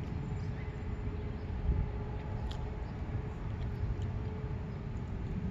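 Low, steady outdoor background rumble with a faint steady hum and a couple of small clicks.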